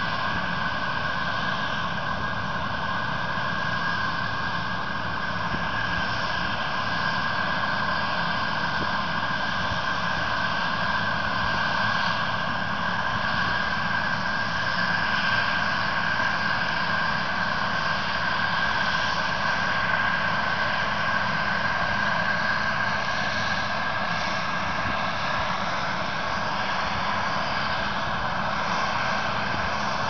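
New Holland TX-series combine harvesters running steadily while harvesting grain: a constant drone of engine and threshing machinery with a steady high whine over a low rumble.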